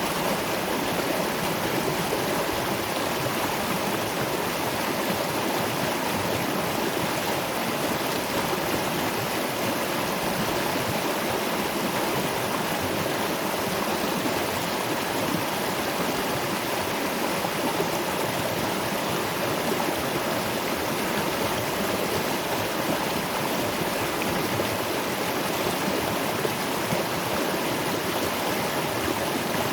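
Waterfall and river water rushing steadily, an even, unbroken wash of water noise.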